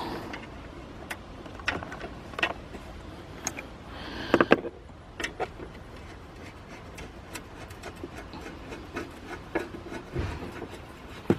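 Light scattered clicks and taps of a screwdriver fitting a 5/16 bolt by hand, with a few sharper knocks about four seconds in and a dull thump near the end.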